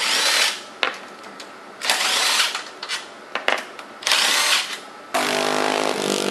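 Cordless impact driver run in three short bursts, backing out the side-cover bolts of a Tillotson 212cc engine, with small clicks between the bursts. Near the end a minibike engine runs at a steady speed.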